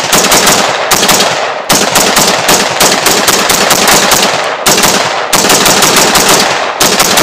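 AR-15 rifle in .300 Blackout firing a long, rapid string of shots, several a second, with a few short pauses, loaded with handloads built on .30 Carbine bullets. The echo of the last shot fades away near the end.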